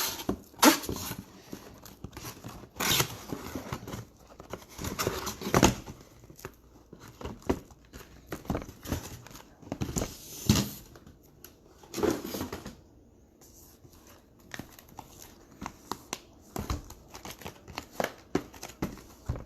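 Cardboard trading card boxes being handled and pulled from a cardboard case: irregular knocks and scrapes with short rustling of cardboard.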